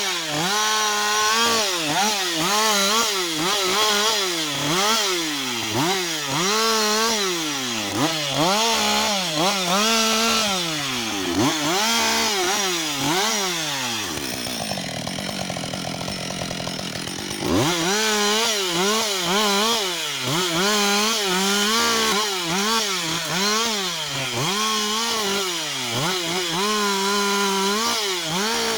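Husqvarna 560 XP two-stroke chainsaw cutting through a fallen tree trunk, its engine note repeatedly sagging as the chain bites the wood and climbing back every second or two. About halfway through it drops to a lower, quieter run for a few seconds, then revs up and cuts again.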